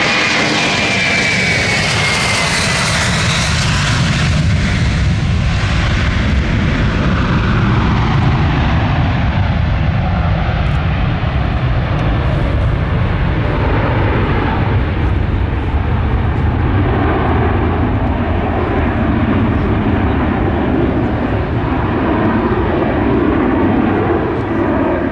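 Antonov An-178's two Progress D-436 turbofan engines at full takeoff power: a loud, steady jet roar as the transport lifts off and climbs away. A high whine over the roar falls in pitch in the first three seconds, and the roar grows duller after that.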